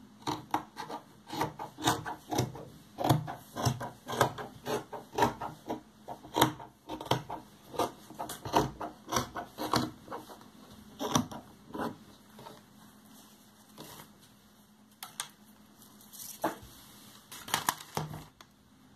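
Fabric scissors snipping through denim and cloth strips, short sharp cuts at about two to three a second, thinning out to a few scattered snips in the last third.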